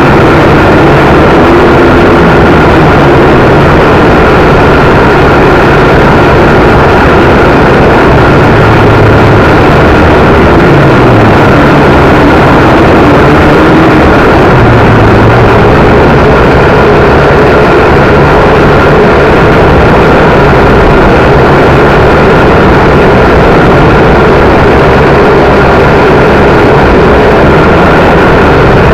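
Small electric quadcopter (WLToys V959) in flight: the motors and propellers whine steadily, their lower pitches wavering up and down as the throttle shifts, under dense wind noise on the microphone.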